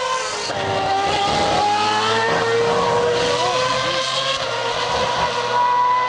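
Formula 1 cars' high-revving V8 engines at speed. About half a second in the note drops, then climbs steadily as the cars accelerate, with a second car's higher note running alongside.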